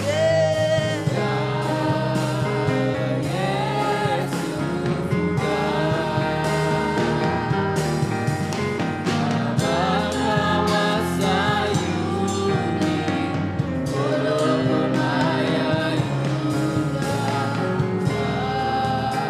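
Gospel worship music: voices singing a melody over steady instrumental accompaniment.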